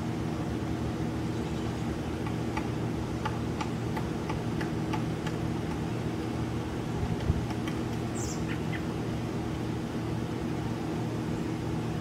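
A woodpecker gives a series of short, sharp call notes in two bouts, with one higher call about eight seconds in, over a steady low mechanical hum.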